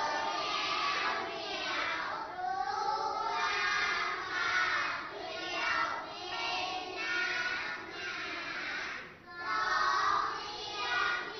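A group of young children chanting a Thai nursery rhyme in unison, in a sing-song rhythm, with short pauses between lines.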